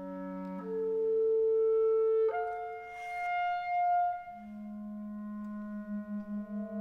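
Clarinet and saxophone playing long held notes together in contemporary chamber music, the pitches shifting a few times. Near the end a low held note starts pulsing quickly, about five times a second.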